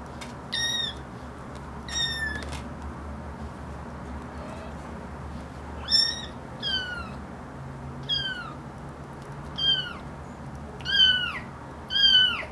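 Bengal kittens mewing during rough play: about eight short, high-pitched mews, each falling in pitch. The last few near the end are the loudest.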